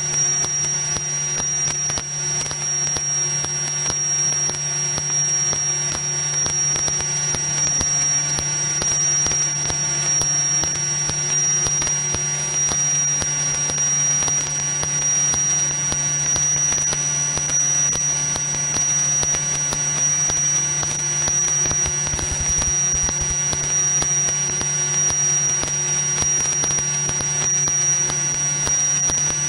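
Steady in-flight drone of a Cirrus SR22 Turbo's piston engine and propeller in cruise, heard through the headset intercom as a deep hum with a thin, steady high-pitched whine over it.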